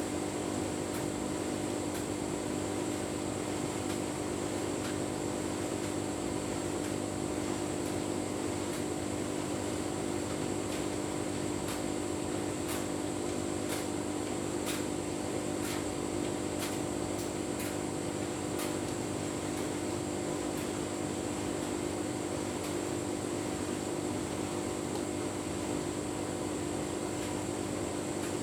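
Tumble dryer running with a full load of bedding: a steady motor and fan hum as the drum turns, with faint light clicks now and then.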